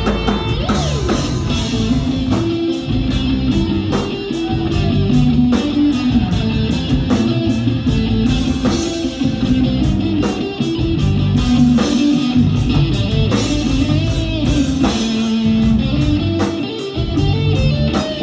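Live rock band playing an instrumental break: electric guitar and bass over a drum kit keeping a steady beat of sharp cymbal and snare hits.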